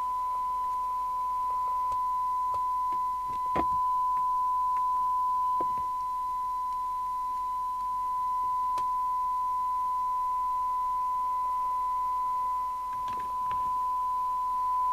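Steady 1 kHz test tone from the CB receiver's audio output, demodulated from the signal generator's test signal during a SINAD check while the IF is aligned. The tone dips slightly in level a few times, and a few faint clicks come over it, the clearest about three and a half seconds in.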